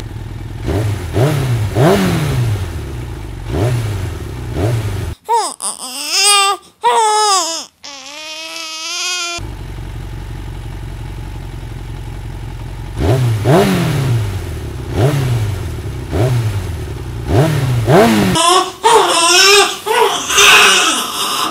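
A motor engine revved again and again in rising-and-falling surges, with a steady idle hum between spells. A baby wails in the middle and again near the end.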